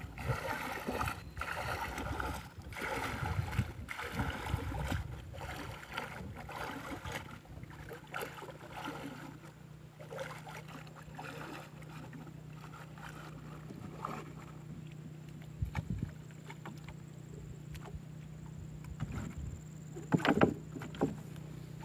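Water sloshing and splashing as a man wades waist-deep through swamp water, pushing a narrow wooden boat, with a splash at each stride for the first several seconds. It then calms to a steady low hum, and a few sharp knocks and splashes come about twenty seconds in.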